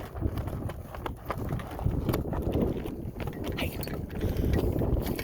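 Wind buffeting the microphone in a low, uneven rumble, with scattered clicks and rustles over it.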